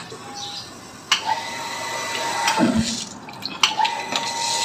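Water gushing out of an open pipe end and splashing onto a concrete floor, starting about a second in, with a thin steady hum underneath. The flow dips briefly a little past halfway, then comes back.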